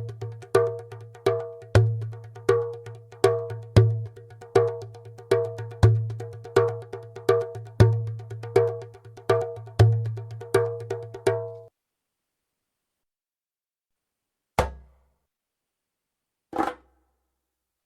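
Djembe played by hand in a steady rhythm of deep bass strokes and higher tone strokes, about two beats a second with lighter strokes in between. It stops about 12 seconds in, and after a pause come two single strokes two seconds apart.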